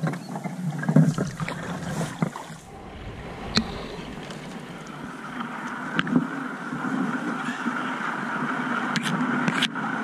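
Canoe being paddled: water sloshing with paddle strokes, and a few sharp knocks.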